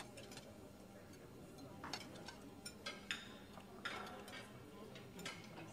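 Faint dining ambience: scattered light clinks and taps of cutlery and glasses over low murmured voices.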